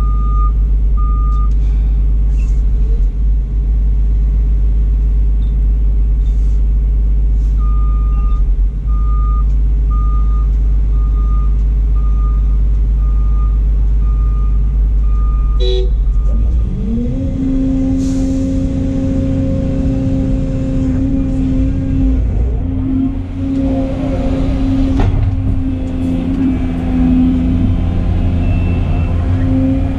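Volvo excavator's diesel engine running at low speed, heard inside the cab, with a backup alarm beeping about once a second. About halfway through the beeping stops and the engine and hydraulics pick up to a steady, higher working drone as the machine digs and swings.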